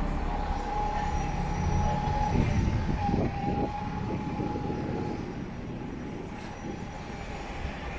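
A vehicle running, a steady high whine over a low rumble, growing quieter after about five seconds.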